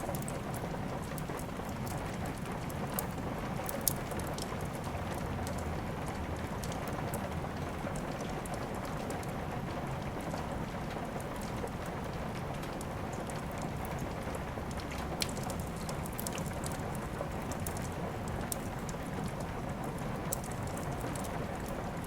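Steady rain with a wood fire crackling: a few sharp pops stand out, about 4, 15 and 20 seconds in.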